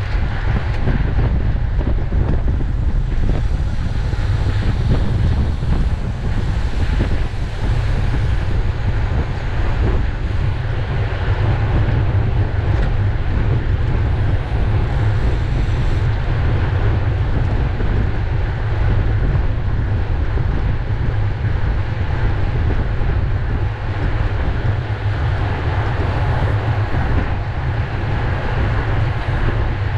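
Wind buffeting the microphone of a bicycle-mounted camera at racing speed: a steady, loud low rumble.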